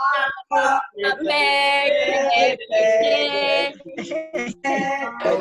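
Group singing led by a woman's voice, with long held notes, heard through a video-conference call.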